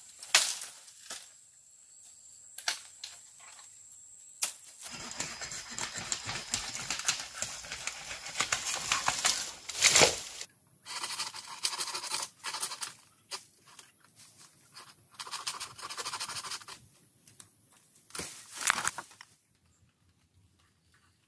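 A long bamboo pole being pulled out of a bamboo clump through dry leaves and brush: rustling, crackling and scraping with several sharp knocks and snaps, the loudest about ten seconds in. The noise stops shortly before the end.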